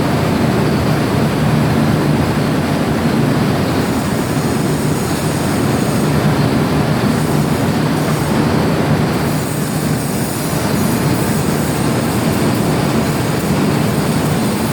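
Metal lathe running steadily, turning an iron pipe, a loud continuous machine noise with a low hum.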